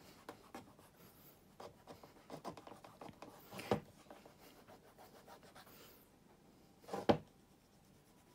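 Fingertips rubbing beeswax shoe cream into the leather of a black cap-toe shoe: faint soft rubbing, with two brief louder scuffs, about four and seven seconds in.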